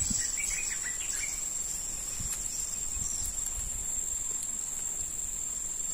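Insects, such as crickets, trilling steadily in one continuous high tone, with a few faint short chirps in the first second.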